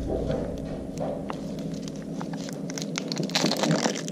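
Plastic wrapping crinkling and crackling as it is peeled off a new motorcycle oil filter, getting busier in the second half.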